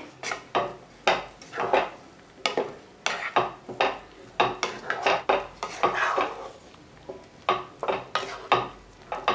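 Spatula stirring paneer cubes and peas through a thick, wet curry gravy in a non-stick pan: repeated short scrapes against the pan, about two a second, with a brief pause about two-thirds of the way through.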